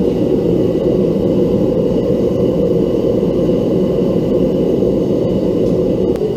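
Homemade gas forge burner running: a steady, low rushing noise with no breaks.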